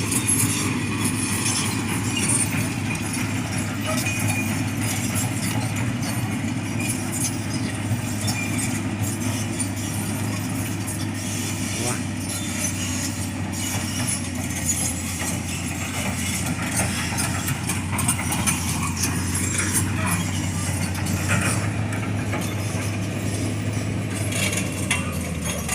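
Komatsu excavator's diesel engine running steadily with a low drone, with scattered clicks over it; the excavator has a failed turbocharger.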